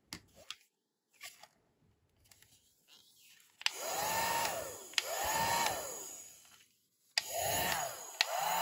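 Toy hair dryer from a Licca-chan doll set switched on four times. Each time a click is followed by a whirr that rises in pitch, holds briefly and falls away over about a second. Light plastic clicks and handling come before the first.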